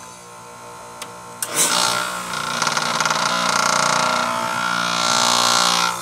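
Carrier heat pump outdoor unit: its reversing valve switches over at the end of the defrost cycle. It starts suddenly with a loud whoosh of refrigerant that lasts about four seconds and cuts off abruptly, over the steady hum of the running compressor. This is normal defrost-cycle operation.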